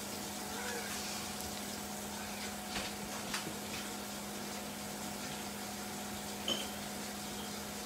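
A steady low hum with faint hiss, broken by a few faint, short knocks and clicks about three seconds in and again near the end.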